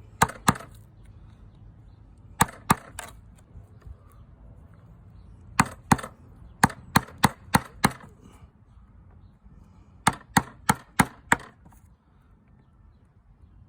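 Hammering on wood: sharp blows at about three a second, in bursts of two, three, seven and five with short pauses between.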